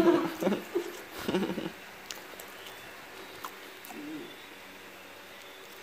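Short wordless vocal murmurs from a low voice, two in the first two seconds and a fainter one about four seconds in, over a low steady background with a few faint ticks.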